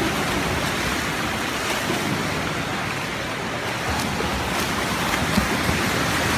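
Steady, even wash of splashing from several swimmers racing freestyle, with a few faint clicks in the second half.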